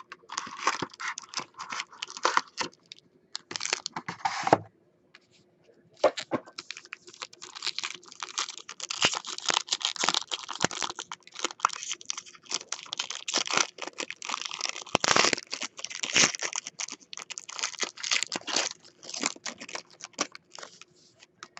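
Foil wrapper of a sealed pack of football trading cards crinkling and tearing as hands lift it from its box and rip it open. The crackling is dense and nearly continuous, with a short pause about five seconds in.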